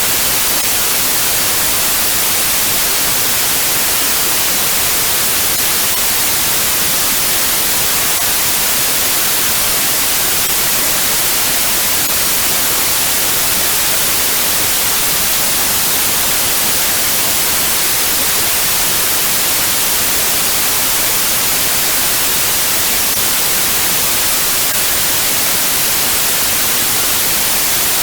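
Steady white noise: a constant, even hiss, strongest in the high frequencies, that does not change.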